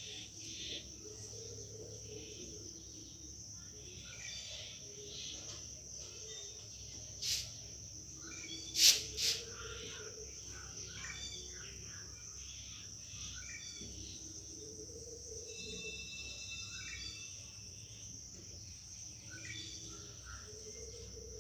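Steady high-pitched insect chirring with scattered bird chirps. Three sharp clicks come about seven and nine seconds in.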